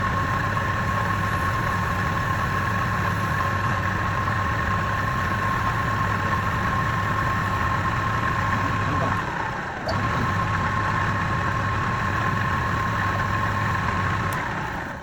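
Woodturning lathe motor running steadily with a constant hum. It dips briefly about nine seconds in, picks up again, and fades near the end.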